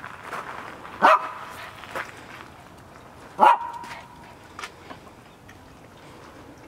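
A Pomeranian barking: two sharp barks about two and a half seconds apart, with a few fainter short sounds around them.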